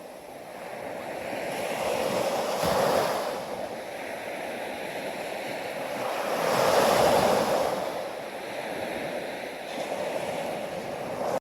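Ocean waves breaking and washing onto a shore, surging twice, about three and about seven seconds in.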